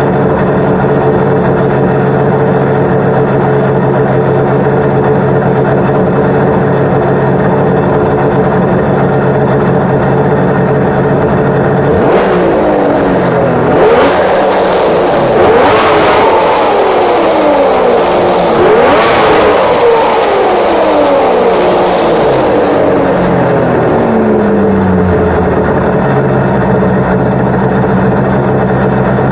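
1996 Arctic Cat ZRT 800 snowmobile's three-cylinder two-stroke engine idling steadily, then revved several times from about twelve seconds in, the pitch climbing and falling with each rev, before it drops back to a steady idle near the end. It is running well, with the carbs tuned and the idle set.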